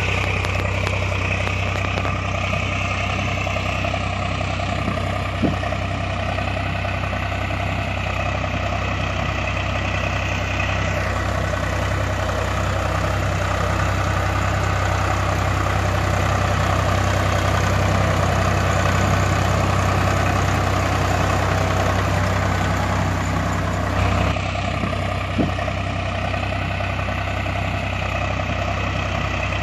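Tractor engine sound idling steadily, a continuous low drone with an even pulse. It is laid over a string-pulled toy tractor, so it is a dubbed engine sound effect and not a real motor.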